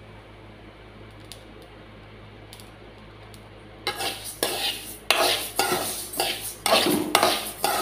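Mustard seeds dry-roasting in a metal pan, with a few faint pops: the crackle of seeds that are roasted. From about four seconds in, a metal spoon stirs and scrapes the seeds around the pan in quick strokes, about two a second.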